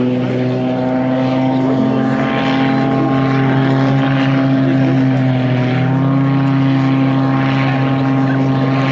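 Extra 330 aerobatic plane's six-cylinder Lycoming engine and propeller running steadily in flight. Its pitch dips slightly and rises again about two thirds of the way through, with a faint hiss swelling and fading every second or two.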